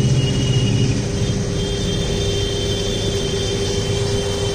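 An engine or motor running steadily: a low hum with a steady tone above it and a faint, thin high whine.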